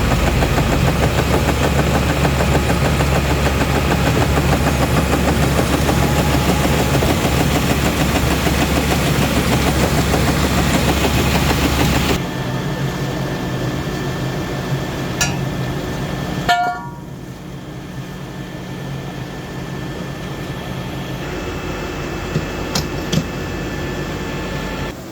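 Engine of heavy concrete-site machinery running steadily and loudly. About twelve seconds in it drops suddenly to a quieter, lower running, with a few short sharp sounds over it.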